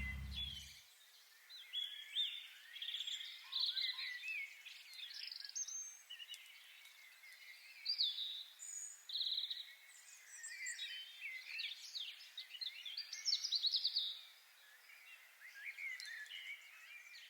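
Several small birds singing and calling at once: a busy mix of short chirps, whistles and rapid trills.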